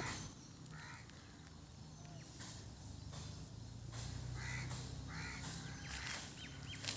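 Crow cawing a few times, faintly, over a steady low hum.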